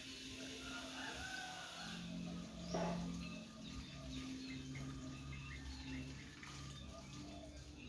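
Scattered bird chirps with poultry nearby, over a steady low hum, and one short louder sound about three seconds in.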